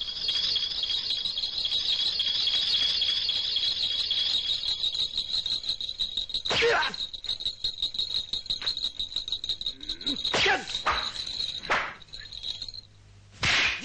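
Small bells tied to the tips of daikon radishes jingling continuously in a high, fast flutter. The bells are the cue in a blindfolded concentration drill. A few sharp sudden sounds cut in about six, ten and eleven seconds in, and the jingling stops near the end.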